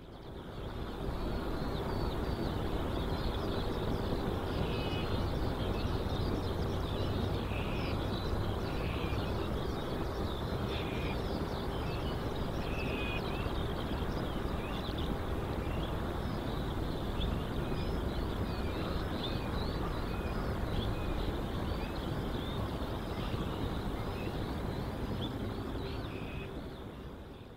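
Steady jet aircraft engine noise heard from a distance, a low rumble with a held hum, with many small birds chirping over it. It fades in at the start and fades out near the end.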